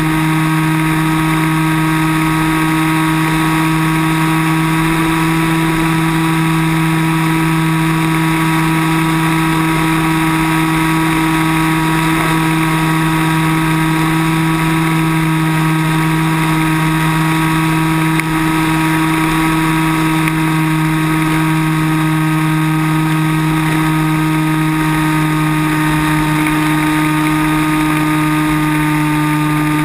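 Multiplex Cularis RC glider's electric motor and propeller running at a steady throttle, a loud constant drone with a higher whine over it, heard from a camera on board the plane, with air rushing past.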